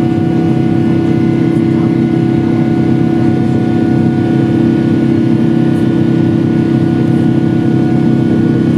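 Cabin noise of a Boeing 777-300ER climbing after takeoff: the steady drone of its GE90 jet engines and rushing air, with a few held humming tones over it.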